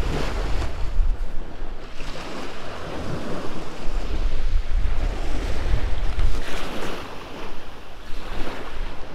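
Small waves breaking and washing up on a sandy beach, coming and going in swells, with wind buffeting the microphone in a low rumble.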